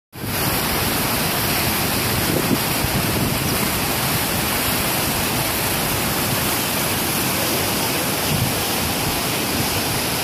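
Muddy canal water rushing and churning below a barrage's piers, a steady, unbroken rushing noise.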